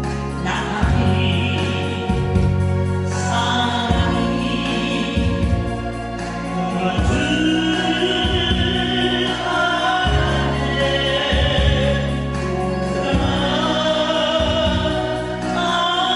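Singing class singing a Korean ballad together over an instrumental backing track, long held notes over a steady bass line.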